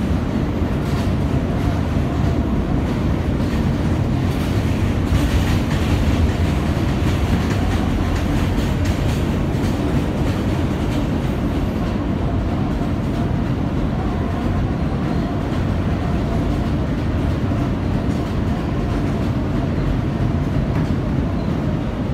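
An R160 subway car running at speed on elevated track, heard from inside the car: a steady rumble of wheels and running gear, with some clatter over the rails through the middle.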